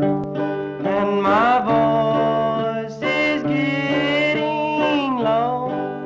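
A man singing a slow song with acoustic guitar accompaniment, in an old field recording. He holds long notes that slide up in pitch just after a second in and slide down near the end.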